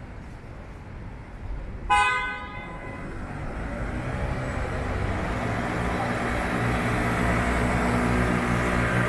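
A short vehicle horn toot about two seconds in, then a motor vehicle's engine hum growing steadily louder as it draws near, over city street noise.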